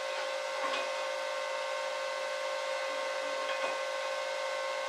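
Steady electric blower-fan whir with a constant hum, with two faint light taps about a second in and again after three and a half seconds; no welding arc is heard.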